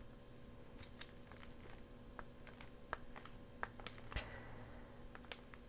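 Glue stick rubbed over paper: faint scattered ticks and rustles as the paper shifts, with one sharper tap about four seconds in.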